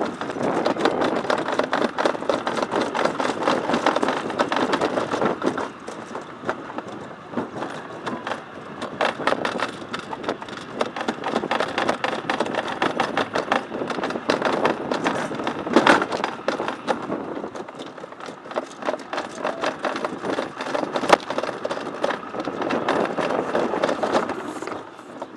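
Summer toboggan sled running down a stainless-steel trough track: a steady rumble and rattle of its wheels on the metal, thick with small clicks, with one sharp knock about sixteen seconds in. It is louder at the start and again near the end.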